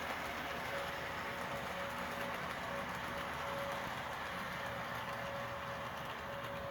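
A train running with a steady rushing noise, while a tornado warning siren sounds faintly underneath at one steady pitch, swelling and fading every second or so.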